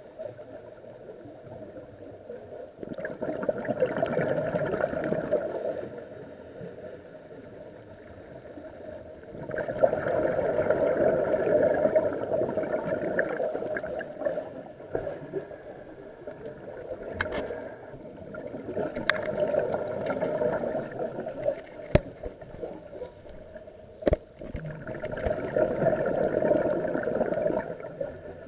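A scuba diver's regulator breathing underwater: bursts of exhaled bubbles gurgling every few seconds, with quieter gaps for each breath in between. Several sharp clicks come in the second half.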